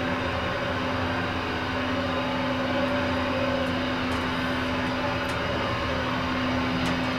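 Otis elevator car riding down, heard from inside the car: a steady hum and rumble with a constant low tone.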